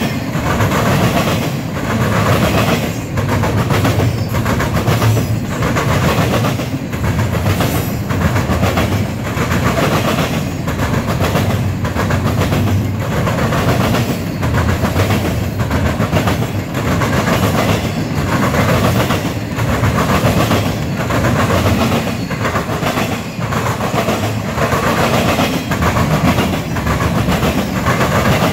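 Intermodal freight train's cars rolling past close by, wheels clacking over rail joints in a steady, regular rhythm over a continuous rumble.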